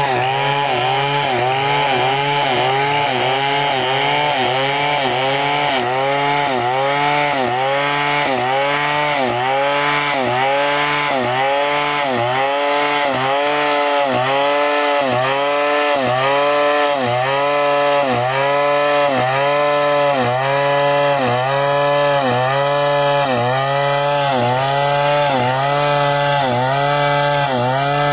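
New West 070 two-stroke chainsaw with a long Stihl bar ripping lengthwise through a log, running under load, its engine pitch dipping and rising again at a steady pace, roughly once a second.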